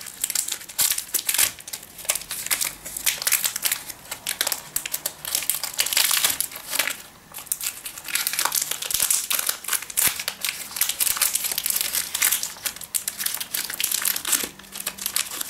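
Crinkly plastic wrapper of a wafer bar being crumpled and pulled open by hand: a continuous, irregular crackling with a short lull about seven seconds in.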